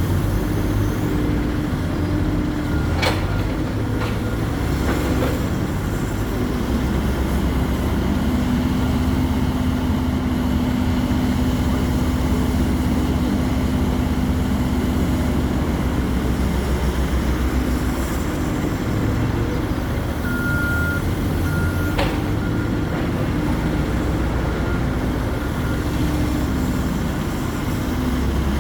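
Hidromek 140LC hydraulic excavator's diesel engine running steadily under digging load, its low note swelling and easing. Two sharp knocks come about 3 s and 22 s in.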